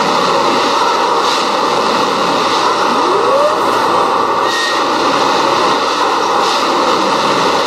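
Plasser & Theurer 09-4X continuous-action tamping machine at work: a loud, steady din of its tamping units vibrating and driving into the ballast, with the machine's running gear and power plant. A brief rising whine comes about three seconds in.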